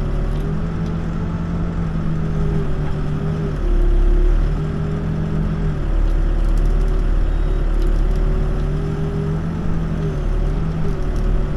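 Backhoe's diesel engine running, its pitch dipping and recovering several times under changing load, louder for a moment about four seconds in and again from six to nine seconds.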